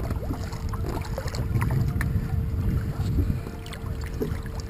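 Muffled low rumble of moving water around a camera held underwater beside a large wels catfish, with scattered small knocks and clicks and a faint steady hum.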